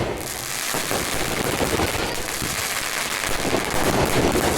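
A 240-shot firecracker going off, a dense, steady crackle of many small bangs in quick succession.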